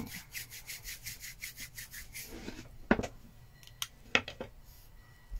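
Palms rubbing briskly together, a quick swishing friction at about five strokes a second, warming the hands for palming over the eyes. The rubbing stops after about two seconds and is followed by a few light knocks and clicks.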